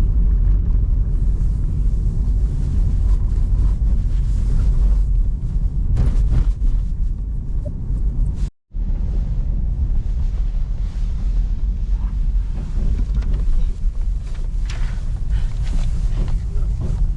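Loud wind buffeting the microphone, a gusty low rumble, cut short for a split second about halfway through.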